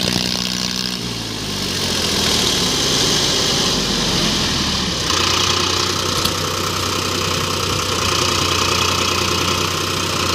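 Tractor diesel engines running, the nearest an Eicher 551 mired in deep mud. The engine note shifts about a second and a half in and steps up louder about five seconds in.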